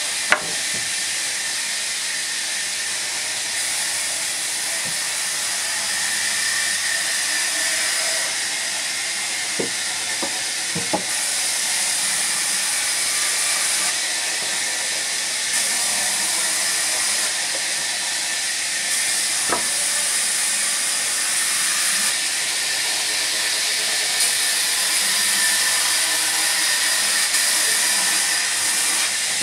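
Steady hiss, with a few short knocks of wood being handled: a sharp one just after the start, three close together about ten seconds in, and another near twenty seconds.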